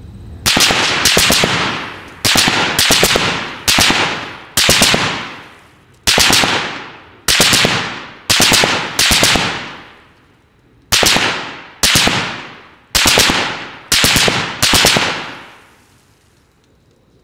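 Light machine guns firing a string of short full-auto bursts of a few rounds each, about one a second, with a brief pause around ten seconds in. Each burst trails off in a long echo.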